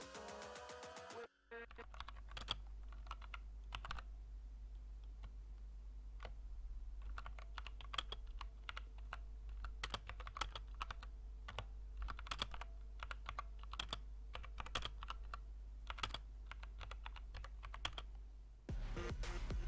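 Typing on a Redragon K530 60% mechanical keyboard with brown switches: an irregular run of key clacks over a steady low hum. Music plays for about the first second and comes back near the end.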